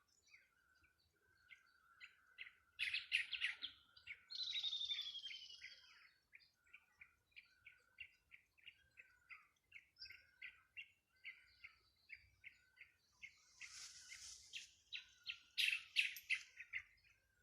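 Songbirds singing and calling: a steady run of short chirps, about two or three a second. A falling whistled phrase comes about four seconds in, and there are bursts of rapid notes around three seconds in and near the end.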